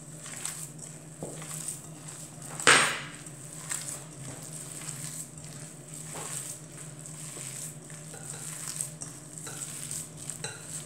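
Hands kneading minced meat with milk-soaked bread and grated cheese in a glass bowl: soft mixing noise and light taps against the glass, with one sharp knock a little under three seconds in. A steady low hum sits under it all.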